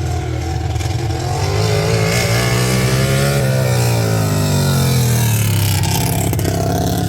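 Racing lawn tractor engine running hard. Its pitch climbs for about three seconds, drops away, then climbs again near the end as the throttle is opened and eased.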